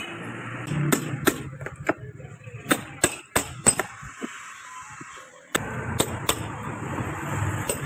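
Hammer striking a chisel against a lead-acid battery's plastic case to cut it open: a series of sharp, irregular knocks.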